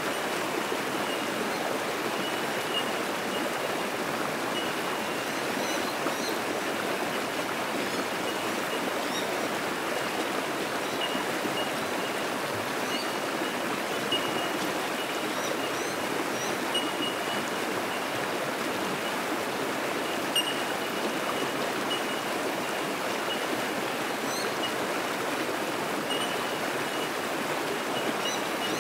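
Bush creek rushing steadily over rocks in white-water rapids. Above it, bell miners (bellbirds) give short, ringing tinks at one pitch, over and over.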